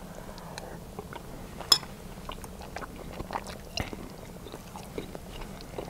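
A man chewing a mouthful of venison goulash, with soft mouth sounds and a few small sharp clicks, the sharpest about two seconds in.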